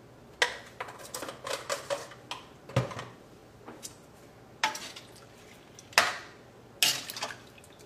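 A metal spoon stirring a stainless steel pan of vegetable curry, clinking and scraping against the pan in a string of separate strokes. The loudest clinks come about five, six and seven seconds in.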